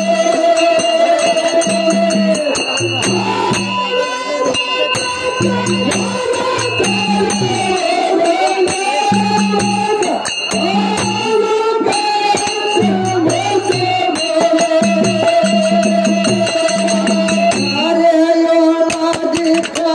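Live Kannada dollina pada folk music: a singer with sustained melodic accompaniment, jingling hand percussion and a recurring low beat.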